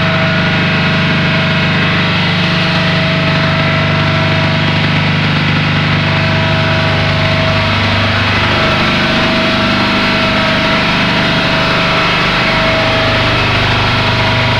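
Electric locomotive's air compressor running, a loud steady mechanical drone with a constant hum. About halfway through, its low drone changes pitch.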